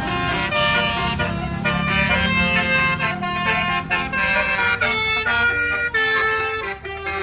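Tour bus's basuri 'telolet' horn playing a melody of quick changing notes, over the low rumble of the bus's engine running.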